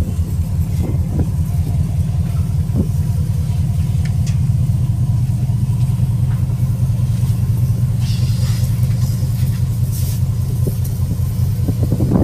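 Wind buffeting the microphone on the open deck of a ship under way: a loud, steady, fluttering low rumble.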